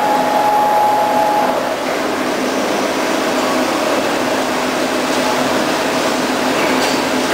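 Mazak Integrex 200SY CNC turning and milling centre running a program: a steady mechanical whir with a low hum, and a higher whine that fades out about a second and a half in.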